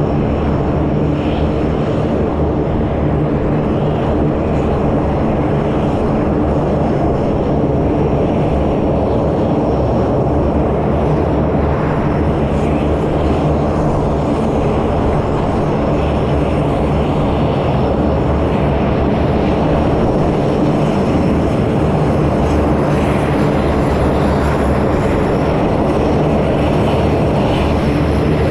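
Several C-130 Hercules four-engine turboprop aircraft taxiing in a line, their engines and propellers droning steadily with a deep, multi-tone hum.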